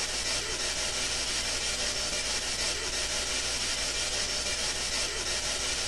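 Steady hiss of white noise or static, even and unbroken, with a low hum underneath.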